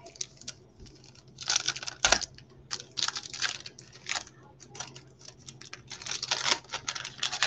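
Baseball trading cards being handled and flipped through, slid off a stack and laid down on a table: a run of quick, irregular papery slides, snaps and taps, busiest about a second and a half in, around three seconds in and again near the end.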